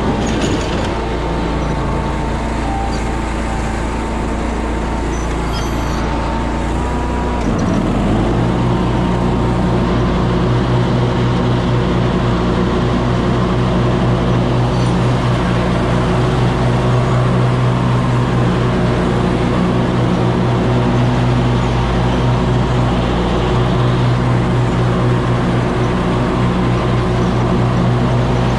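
Ferris stand-on zero-turn mower's engine running steadily; about eight seconds in, the engine speed dips and then rises to a higher, steady pitch as the mower goes to work cutting grass.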